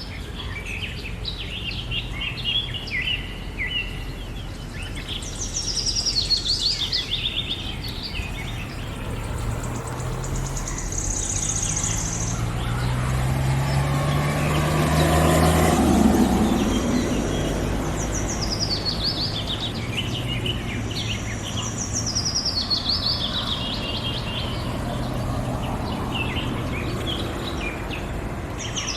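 Several wild birds chirping and calling, with repeated short chirps and falling runs of notes. In the middle a vehicle passes, its engine note rising and loudest about sixteen seconds in before fading.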